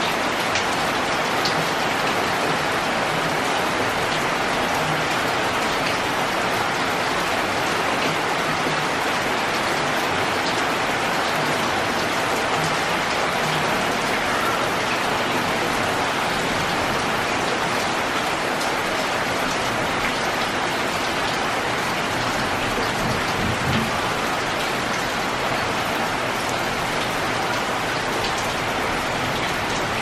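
Steady rain falling on leaves and hard surfaces: an even hiss of rainfall with scattered individual drop ticks.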